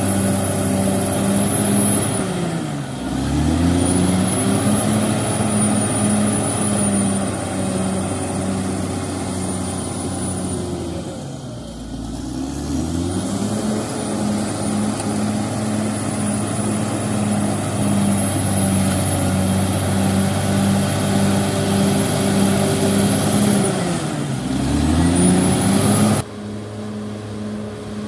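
CAT D6R XL bulldozer's diesel engine running hard with a high whine, its revs dropping and climbing back three times: about 3 s in, around 12 s and near 25 s. Near the end the sound abruptly turns quieter and duller.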